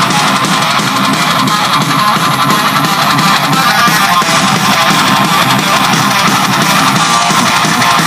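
Guitar-driven music played loudly through a Technics SB-C80 speaker, with little deep bass.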